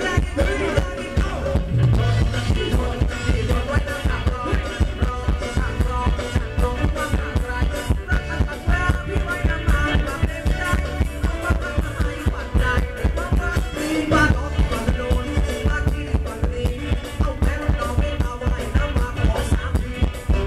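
Live Thai ramwong band music played loud through a PA, with a singer over a steady, fast beat.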